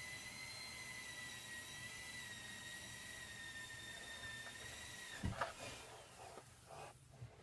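A small electric motor whining steadily at a high pitch, sagging slightly, then cutting off about five seconds in. A few light knocks follow.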